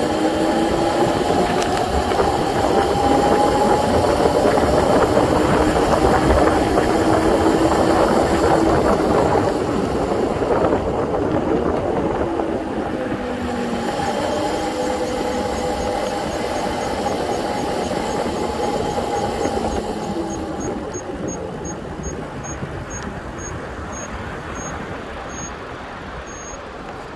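Razor 750 W electric bike riding, its motor whining in pitches that glide up and down with speed over a steady rush of tyre and wind noise. The sound eases off through the second half as the bike slows. Near the end a faint high ticking comes in and slows down.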